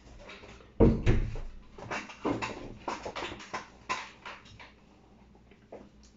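A heavy thump about a second in, followed by a run of lighter knocks and clatters, as a person sits down at a table and settles into the seat.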